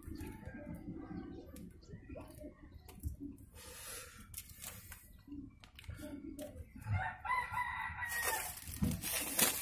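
A rooster crowing once, about seven seconds in, over faint background sounds. A rustling hiss follows near the end.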